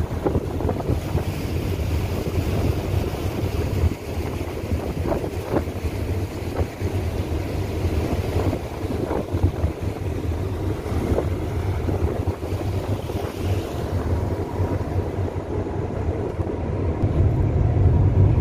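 A ship's engine rumbling steadily under way, with wind buffeting the microphone and the rush of churned water from the wake along the hull. The low rumble grows louder near the end.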